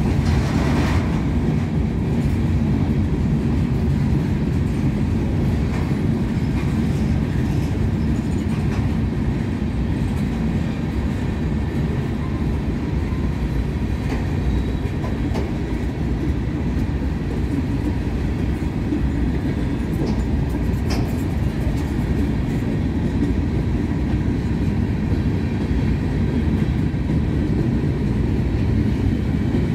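Covered hopper freight cars of a CSX train rolling past at a steady speed: a continuous low rumble of steel wheels on the rails, with a few clacks over the rail joints.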